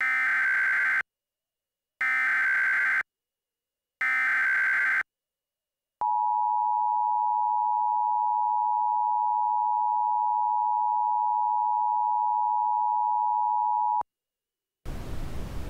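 Emergency Alert System header: three one-second bursts of screeching digital data, each a second apart, then the EAS two-tone attention signal held steady for about eight seconds. A hiss of static starts about a second before the end.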